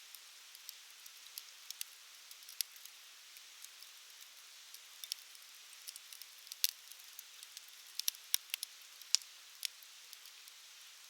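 Wood campfire crackling: scattered sharp pops over a faint steady hiss, with a quick cluster of pops about eight to nine seconds in.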